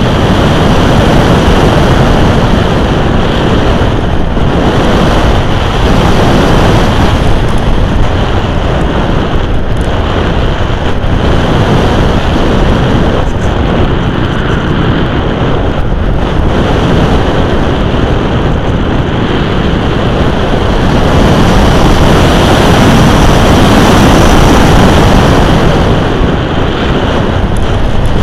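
Loud rush of airflow over the onboard camera microphone of an RC glider in flight: a steady, noisy hiss with no clear motor tone, swelling a little about two-thirds of the way through.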